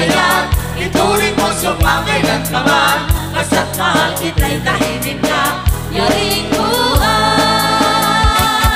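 A DJ 'rebeat' dance remix of a Filipino waltz (balse) song, with singing over a heavy bass hit about every second and a quarter. About seven seconds in, the voice gives way to held notes, and a few quick bass hits come near the end.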